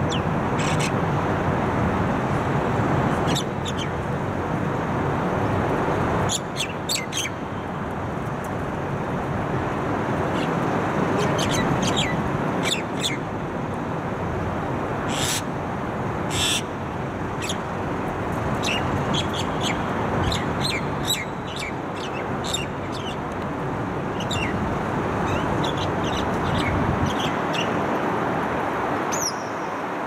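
Common myna calling in short, sharp whistles and chattering notes that come in scattered clusters, over a steady low background hum.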